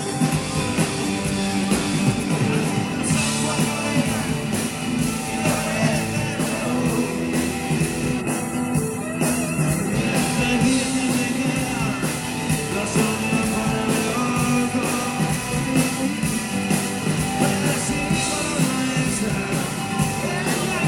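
A rock band playing live, with electric guitar, bass and drums keeping a steady beat, and a voice singing over them.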